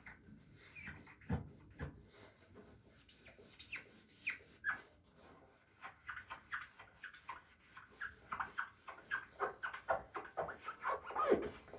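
Squeaky cleaning sounds: a series of short, high squeaks from scrubbing, sparse at first and then coming fast, several a second, in the second half.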